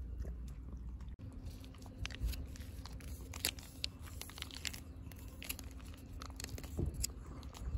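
Plastic cat-food pouch crinkling as a hand squeezes wet food out of it into a bowl, with many scattered sharp crackles.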